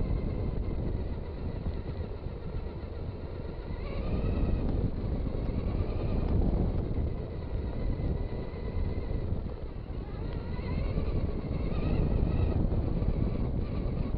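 Traxxas Stampede RC truck's electric motor whining, rising and falling in pitch as the throttle changes, over a steady low rumble.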